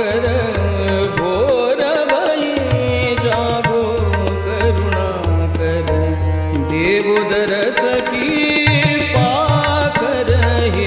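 Indian devotional song music: a melody that glides and bends in pitch over steady hand-drum strokes and repeated low bass notes.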